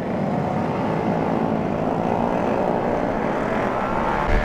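Several motorcycle engines revving together as a pack of bikes pulls away from a standstill, their pitch rising near the end.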